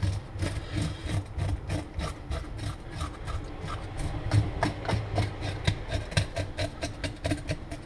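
Knife scraping the scales off a gilthead sea bream (dorade) in quick, repeated strokes, about five a second.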